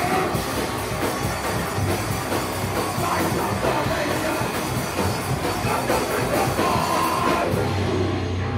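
Hardcore punk band playing live, loud and dense, with distorted guitars, bass and drums. Near the end the cymbal wash stops and a lower guitar-and-bass part carries on.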